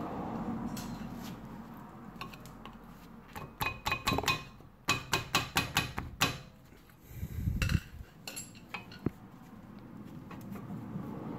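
Rusty brake pad being worked in the caliper bracket of a Nissan Leaf front brake: a few knocks, then a quick run of sharp metallic clinks about midway, followed by a short rustle and one last click.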